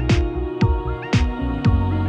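Electronic background music with a steady beat, about two hits a second, over sustained synth tones and a held bass.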